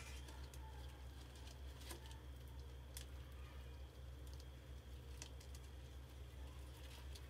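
Quiet room tone: a steady low hum with a few faint, sharp clicks scattered through it.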